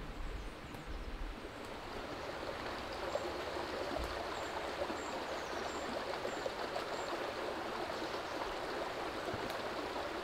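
Shallow stream running over rocks: a steady rushing of water that grows a little louder about two seconds in.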